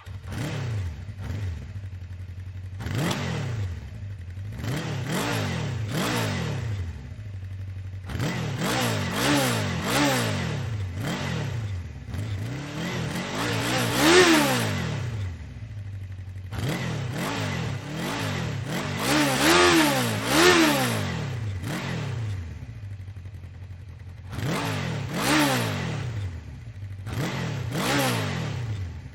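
An engine revving again and again over a steady idle, each rev climbing in pitch and dropping back within about a second, with the biggest revs about halfway through and again a little later.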